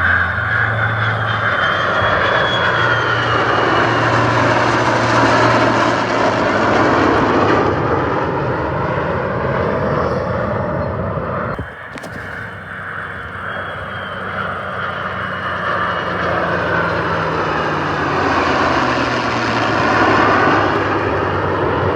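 Fixed-wing aircraft flying past, loud engine noise whose pitch slides as they pass; it breaks off suddenly about twelve seconds in and then builds again with another pass.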